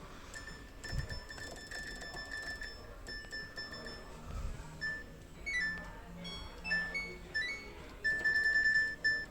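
Electronic beeps and a short chime tune from a washing machine's control panel as its program settings are stepped through, ending in a quick run of beeps near the end.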